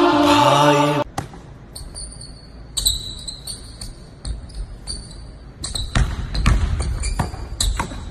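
A chanted song cuts off suddenly about a second in. Then a basketball is dribbled on a gym floor: irregular thumps of the ball and short, high sneaker squeaks.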